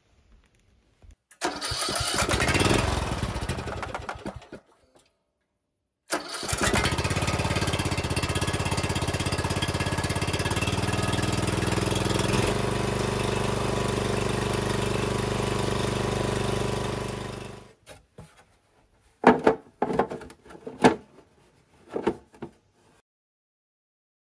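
Newly swapped-in Briggs & Stratton Powerbuilt engine on a Husqvarna Rider 13 riding mower: a first burst of about three seconds, then it starts and runs steadily for about eleven seconds before it is shut off and winds down. A few sharp knocks follow near the end.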